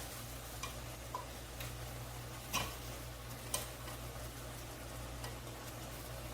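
Oiled chapati frying in a hot pan: a faint steady sizzle with a few sharp ticks, the loudest about two and a half seconds in, over a low steady hum.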